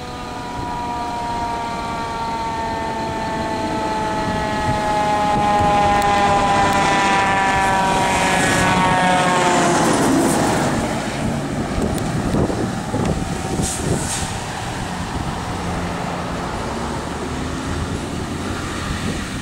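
A 1995 KME pumper fire engine passing on a call: its siren sounds one tone sliding slowly downward in pitch and grows louder as the truck nears, loudest just before it passes about ten seconds in. After that the truck's engine and road noise fade as it drives away.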